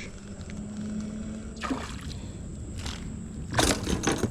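Water splashing and sloshing as a hooked spotted bass is brought in to the kayak: a short splash a little under two seconds in and louder splashing near the end.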